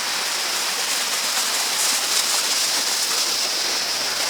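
Steady rushing hiss of a small waterfall's falling water.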